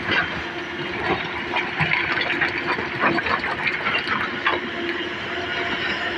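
Komatsu excavator running under load, with a steady hum and hiss, while rock clatters and knocks repeatedly as stone is moved and dumped.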